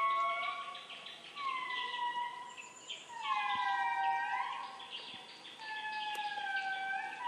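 Indri singing: long held notes, each lasting about a second and bending in pitch, with several voices overlapping in a group chorus about three to four seconds in.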